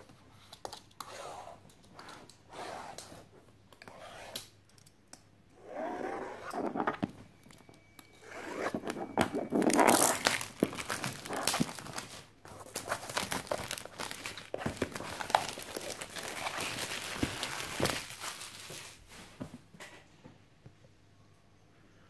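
Clear plastic shrink-wrap being torn and crumpled off a cardboard box: irregular crinkling and tearing in bursts, loudest about ten seconds in, dying away near the end.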